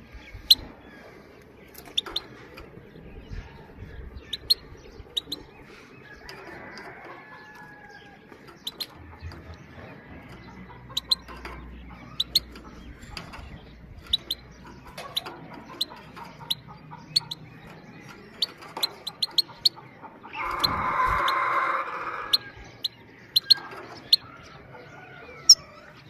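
Goldfinch giving short, sharp 'pit-pit' calls, the female call used to stir other goldfinches into song, scattered every second or so, some loud and close. About twenty seconds in comes a harsher, louder noise lasting about two seconds.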